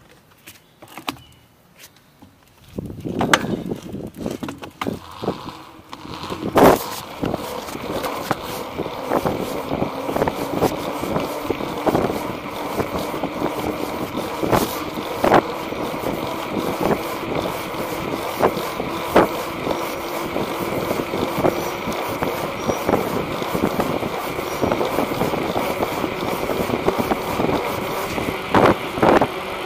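Knobby-tyred bicycle rolling on pavement: steady tyre noise with a low hum, and frequent clacks and knocks as it rides over bumps and joints. The rolling noise starts about three seconds in, after a few quiet clicks.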